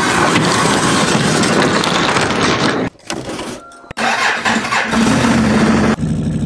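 A loud noisy rumble for about three seconds, then an ATV engine cranked on its electric starter, catching and settling into a steady idle at the exhaust.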